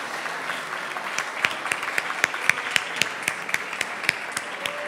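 Audience applauding, with a few louder single claps standing out from about a second in.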